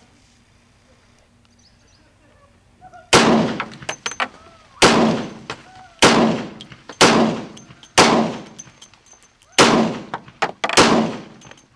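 IMI Desert Eagle .357 Magnum semi-automatic pistol fired seven times in steady succession, about one to one and a half seconds apart, starting about three seconds in, with another shot right at the end. Each loud shot trails off over about half a second.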